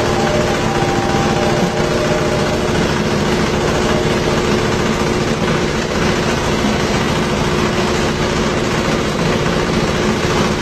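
Coconut husk peeling machine running steadily: a continuous mechanical drone with a constant hum.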